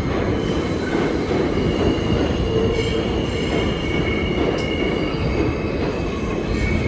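New York City subway train running on the rails, with a steady heavy rumble and a high, sustained wheel squeal on top.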